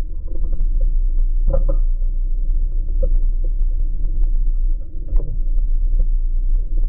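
Steady low rumble picked up by a bicycle-mounted camera while riding on city pavement, with many small rattling clicks and a couple of brief louder knocks.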